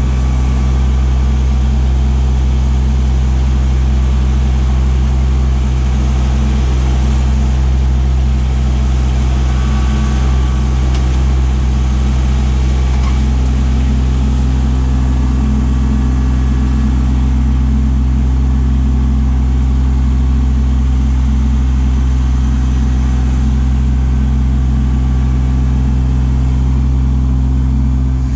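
Kubota LX2610 compact tractor's three-cylinder diesel engine running loud and close at a steady speed.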